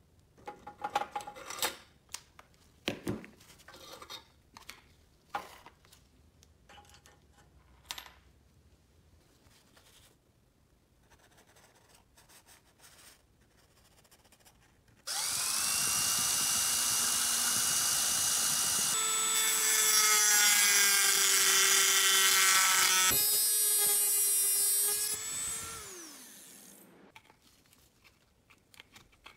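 Light taps and clicks of metal being handled on a workbench. Then a small high-speed rotary power tool starts suddenly and runs for about ten seconds, its pitch shifting as it works and falling as it winds down. Near the end come a few clicks as tin snips cut thin sheet metal.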